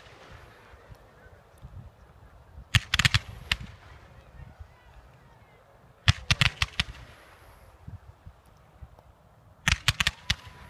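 Fireworks display: volleys of white comets fired in fans, each volley a quick cluster of several sharp bangs. There are three volleys about three seconds apart.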